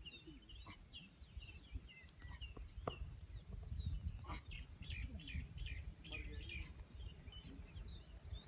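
Several small birds chirping and twittering in quick short calls, over a low steady rumble.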